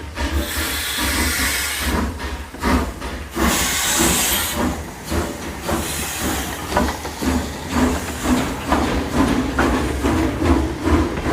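Steam locomotive pulling away: long bursts of steam hiss in the first few seconds, then steady repeated exhaust chuffs and clanks as it gets moving.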